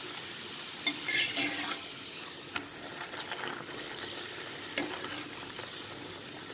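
Poori frying in hot oil, a steady sizzle, with three sharp clicks against the pan.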